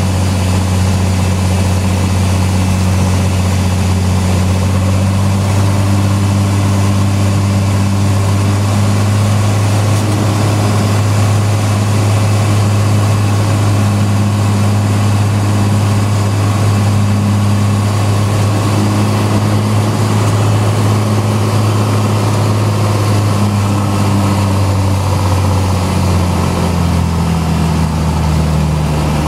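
Small propeller airplane's piston engine droning steadily at an even pitch, then dropping lower a few seconds before the end as the power is pulled back.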